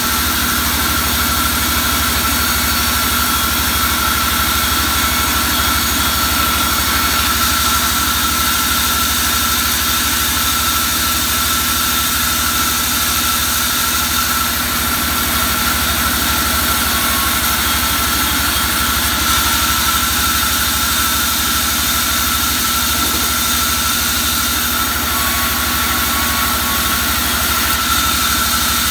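Belt-driven sawmill band saw running steadily while wooden slabs are fed through it. It makes a constant drone with a steady high whine over it.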